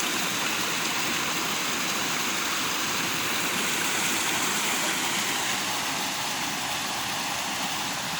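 Steady rushing of water flowing over a dam.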